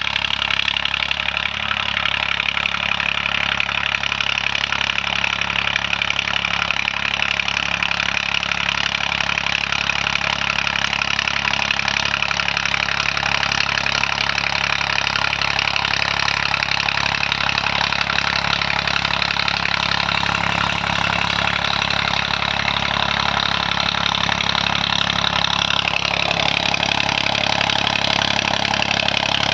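Swaraj 744 tractor's three-cylinder diesel engine running steadily through an aftermarket Eicher silencer. Near the end a high whine drops in pitch.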